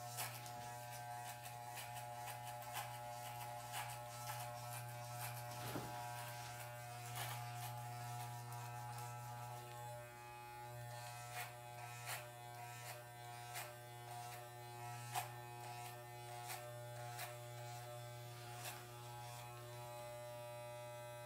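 Corded Wahl electric hair clippers buzzing steadily as they cut hair up the back and sides of the head, with scattered short clicks.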